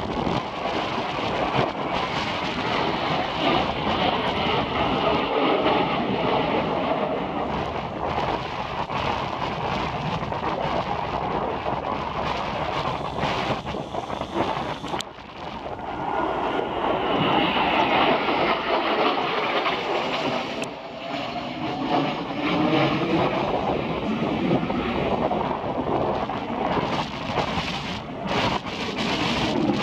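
Jet noise from Blue Impulse Kawasaki T-4 jet trainers flying, with strong wind buffeting the microphone. The noise dips briefly about halfway through, then swells again with a sweeping pitch as aircraft pass.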